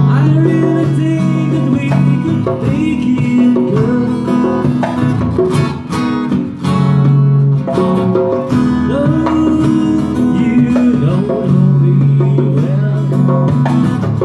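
Live acoustic band music: guitar playing with a djembe hand drum keeping the beat.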